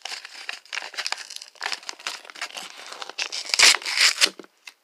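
Heavily taped paper wrapping crinkling and tearing as it is ripped open by hand in irregular crackles, with a louder stretch of tearing about three and a half seconds in.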